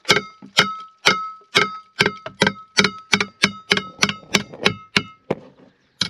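Repeated hammer blows on a steel anchor-chain pipe to drive it out of the deck, about three a second. Each blow leaves a clear metallic ring, with a brief pause near the end before the blows resume.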